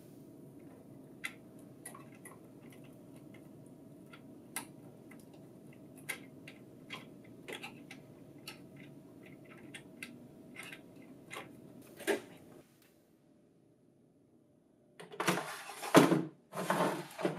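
Light plastic clicks and taps as rubber pick tires are handled and snapped onto the pick roller hubs of a Lexmark laser printer, over a faint steady hum that cuts off after about twelve seconds. Near the end comes the plastic paper tray sliding into the printer with a scrape and a knock, twice, the loudest sounds.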